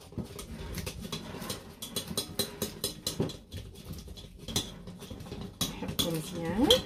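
A wire whisk beating a thin batter of cornstarch, flour and water in a glass bowl, making quick, irregular clicks and scrapes against the glass as the batter is worked smooth and lump-free. Near the end there is a short sound that rises and falls in pitch.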